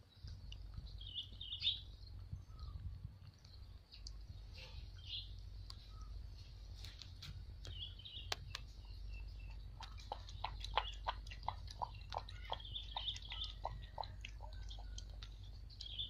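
Puppy lapping liquid from a plastic bowl: a quick, even run of laps, about three or four a second, for a few seconds in the second half. Birds chirp in the background throughout.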